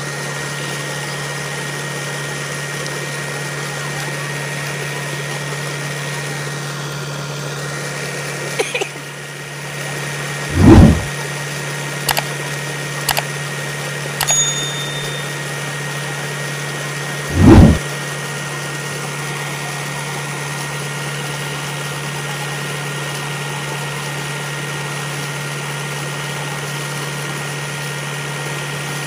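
Tractor diesel engine running steadily, belt-driving a tubewell turbine pump, with water gushing from the discharge pipe into a pool. Two short loud thumps come about ten and seventeen seconds in, with a few sharp clicks between them.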